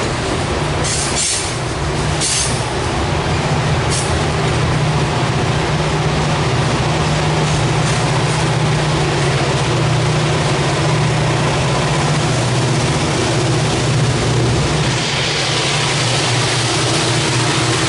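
Loaded coal hopper cars rolling past on the grade with a steady, loud rumble of wheels on rail, broken by a few short, high wheel squeals in the first few seconds. Near the end the sound shifts as the rear helper diesel locomotives come up pushing the train.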